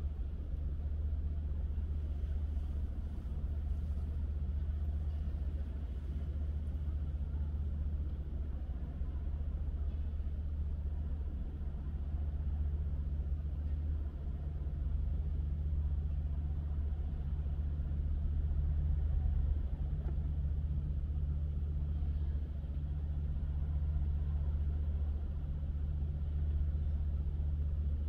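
A car driving on city roads: a steady low rumble of engine and tyres that swells and eases a little.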